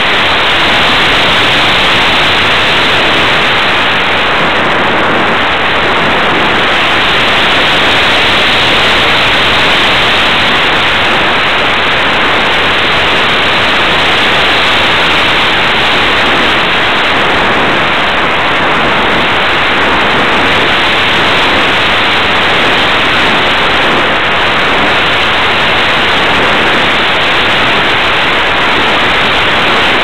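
Loud, steady rush of airflow over the microphone of a small camera strapped on top of an unpowered balsa slope glider in flight.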